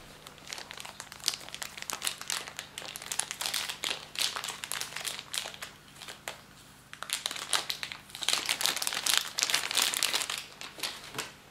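Clear plastic bag crinkling as a remote control is unwrapped from it by hand: rapid crackles in two busy spells with a short lull about halfway through.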